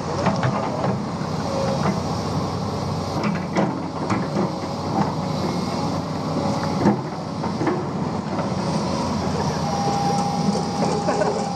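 Heavy diesel machinery running steadily, with frequent short metallic clanks and knocks. A thin, steady whine sets in near the end.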